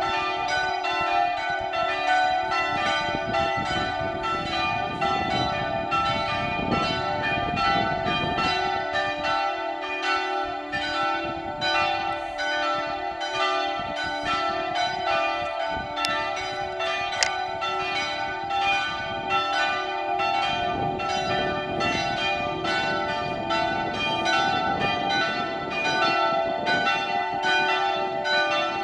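Full peal of three swinging church bells tuned to d'', e'' and f-sharp'', striking continuously in an overlapping, unbroken pattern with their long ringing tones.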